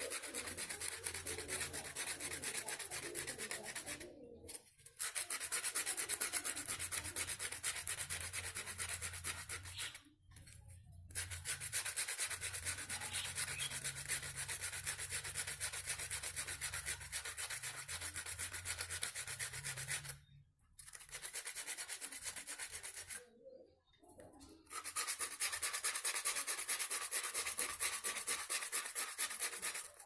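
Sandpaper rubbed quickly back and forth by hand on a rusty steel part of a bike horn, scouring off the rust. A steady, rapid scratching that stops briefly four times.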